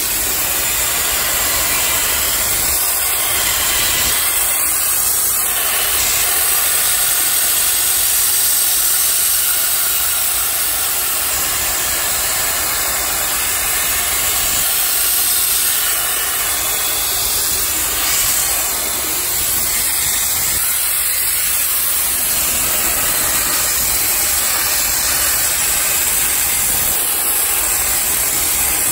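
Metco wire flame-spray gun running steadily while metalizing with zinc-aluminium 85/15 wire: a loud, continuous hiss from the gas flame and compressed-air spray jet.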